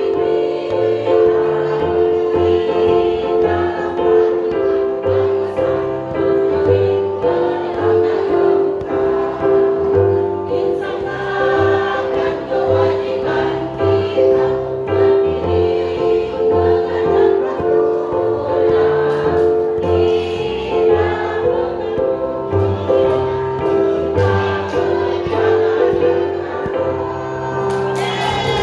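A teachers' choir singing a song in parts with musical accompaniment under it, the voices holding long notes.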